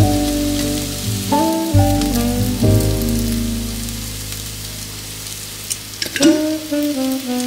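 Food sizzling as it fries in a nonstick frying pan, a steady crackling hiss, over soft background music with held melodic notes. A couple of sharp clicks sound about six seconds in.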